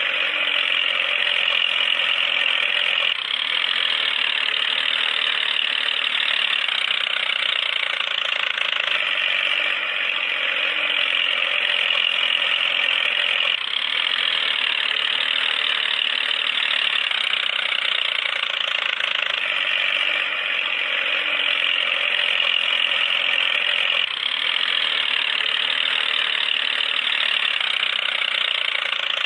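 Small electric motor and gearbox of a toy tractor running steadily with a high whirring whine, its tone shifting slightly every five seconds or so.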